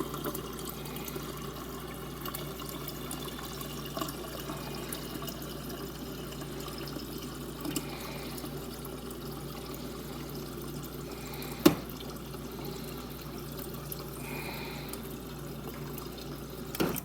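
Water running steadily from a refrigerator door dispenser into a pitcher, flushing a newly installed water filter. A single sharp click sounds about two thirds of the way through.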